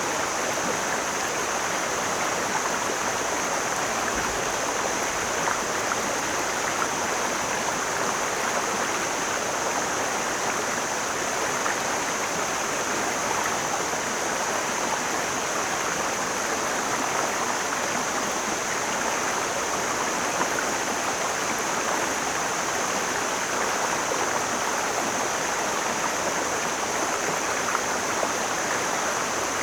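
Mountain stream flowing, a steady, even rush of water with no breaks, and a constant thin high hiss above it.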